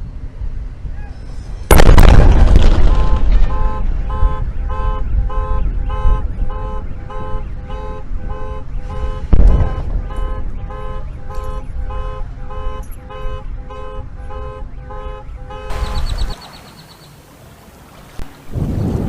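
Starship SN4 prototype exploding: a sudden loud blast about two seconds in, then a long rumble with a second boom around the middle. An alarm beeps in two alternating tones about twice a second through most of the rumble, and another blast rises near the end.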